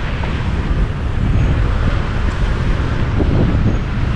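Steady low rumble of a semi-truck, heard from inside the cab with its engine running.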